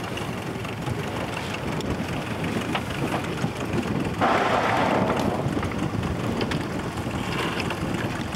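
Steady low rumble and hiss of a boat's engine with wind on the microphone, and a louder rushing hiss about four seconds in that lasts around a second.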